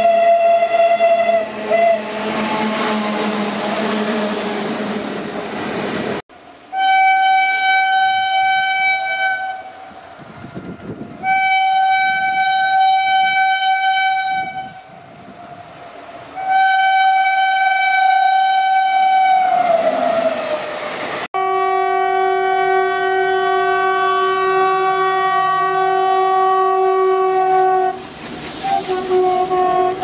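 Indian Railways locomotive horns, in three cuts. First a diesel locomotive's horn, ending about a second in, followed by the rumble of the train running. Next a WAP7 electric locomotive sounding three long single-pitch blasts, the last sliding down in pitch as it passes. Last a diesel locomotive's horn blowing two tones together in a long blast, then again near the end.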